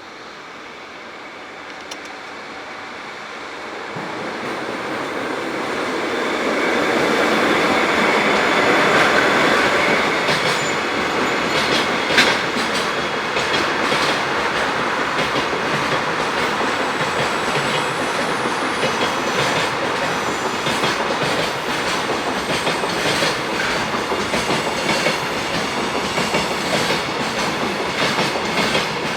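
JR Freight train hauled by an electric locomotive approaching and passing close by: the rumble builds over the first several seconds, then the wagons roll past with a steady run of clickety-clack wheel clicks over the rail joints, one sharper knock near the middle.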